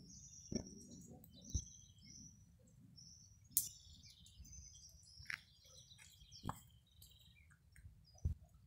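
Small birds chirping in many short, high calls, with a few sharp knocks and a steady low rumble underneath.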